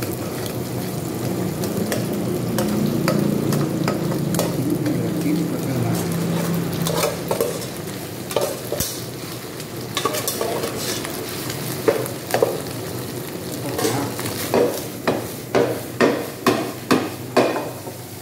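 Egg and rice frying and sizzling in a pan while a spatula stirs and scrapes through them. Near the end the spatula knocks against the pan in a quick series, about twice a second.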